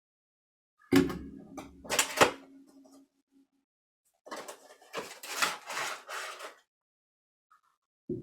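Action-figure box being opened by hand: a knock and sharp clicks about a second in, then rustling and scraping of cardboard and plastic packaging for about two seconds.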